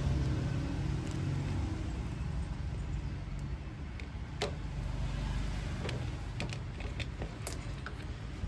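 750 W electric impact drill motor humming, then winding down in the first couple of seconds, followed by scattered light clicks and knocks of the tool being handled.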